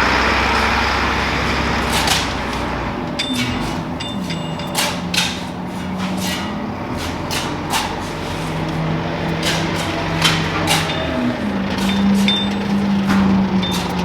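Diesel engine of a work vehicle running and changing speed, with repeated metallic clanks and knocks. Dirt is being loaded or hauled.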